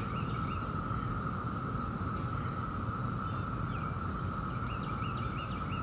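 Steady, unbroken high drone of an insect chorus in summer woods. A songbird sings short, quickly repeated warbling notes at the start and again near the end.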